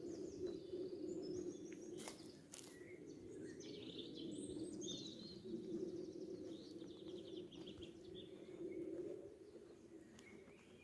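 Several small birds singing faintly in a spring forest, with high chirps and quick trills over a steady low background hum. Two sharp clicks come about two seconds in.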